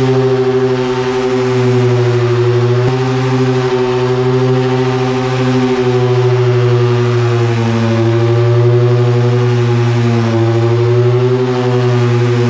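DeWalt electric sander running steadily with 80-grit paper, sanding a john boat's hull: a loud, steady motor hum whose pitch wavers slightly.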